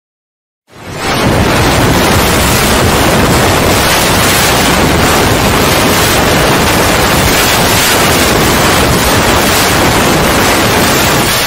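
Loud, steady hiss of white noise like TV static. It comes in after a brief silence and swells to full level within about half a second.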